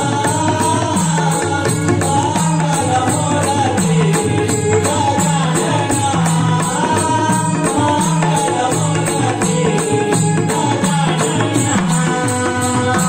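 A singer's voice with dholki and mridang drums keeping a steady repeating beat, with a bright jingling rhythm on top.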